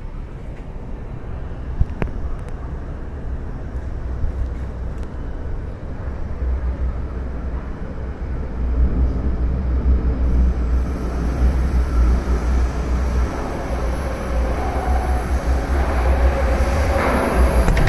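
Taipei Metro C371 metro train pulling into the station, its low rumble growing steadily louder as it approaches. A thin high whine comes in about ten seconds in.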